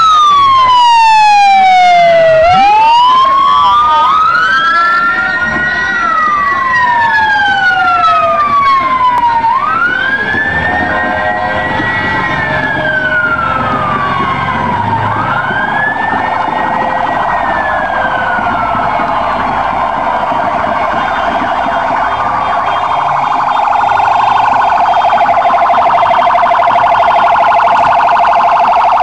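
Electronic vehicle sirens wailing in slow rising and falling sweeps, two of them overlapping at first. About two-thirds of the way through, the sound changes to a fast warble.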